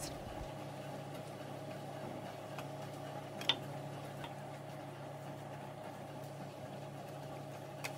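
Faint steady hum, with one soft click about three and a half seconds in.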